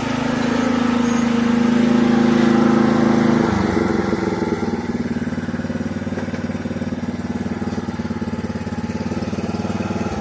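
Lawn mower engine running steadily at speed, then throttled back about three and a half seconds in to a lower, pulsing idle.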